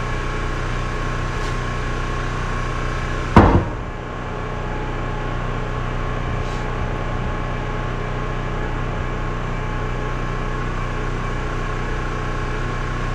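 A steady background hum with several fixed tones, and one sharp knock with a brief ring about three and a half seconds in, while the differential's spider gears are being worked into mesh.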